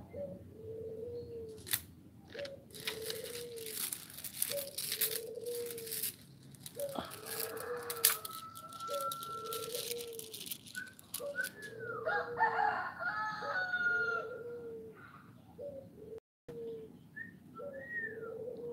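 A dove cooing in a steady repeated call about once a second, with rudraksha beads clicking and rattling as the malas are handled in the first half. More varied, higher bird calls come in around the middle.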